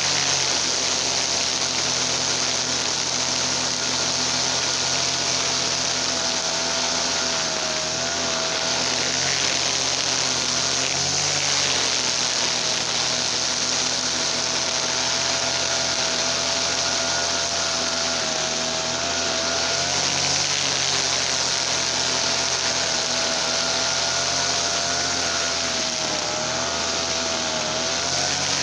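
TL33 gasoline brush cutter's small two-stroke engine running steadily at high speed. Its pitch dips briefly a few times, around 8, 11, 20 and 27 seconds in.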